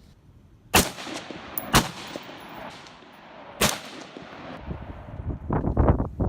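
Three rifle shots from a semi-automatic rifle, the second about a second after the first and the third about two seconds later, each with an echoing tail. A rough rumbling noise follows near the end.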